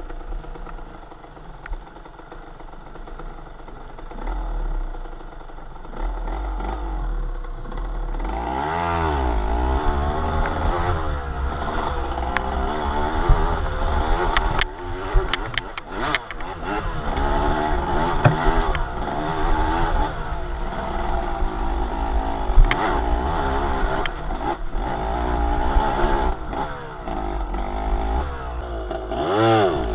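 A motor vehicle's engine running with a steady low rumble. Its pitch rises and falls a few times, most markedly about a third of the way in and again near the end, with scattered clattering.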